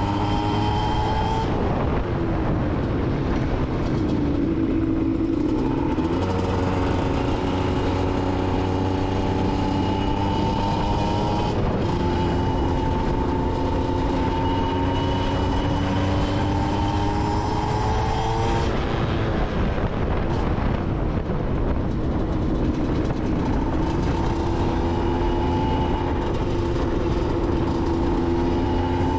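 Aprilia SX 125's single-cylinder two-stroke engine through an Arrow exhaust, ridden under way: the engine note climbs in pitch in several long pulls and drops back each time the gear or throttle changes, about four times.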